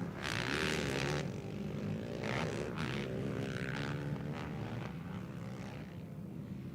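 Racing ATV (quad bike) engines revving and running on the track, their pitch rising and falling as they accelerate and shift, with a louder surge in the first second.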